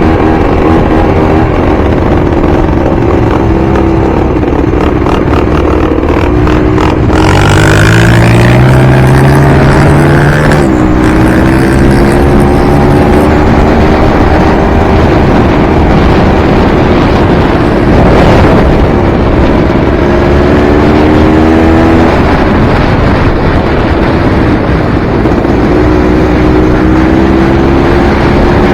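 Enduro dirt bike engine revving while riding, its pitch climbing and dropping repeatedly as the throttle opens and closes and the gears change, over a steady rushing noise.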